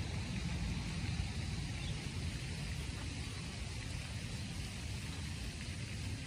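Steady rain falling, an even hiss of drops, over a low steady rumble.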